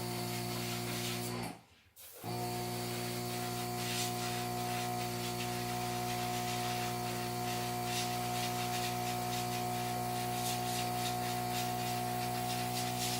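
Small air compressor humming steadily, with a hiss of spray over it; the sound drops out briefly about two seconds in and resumes unchanged.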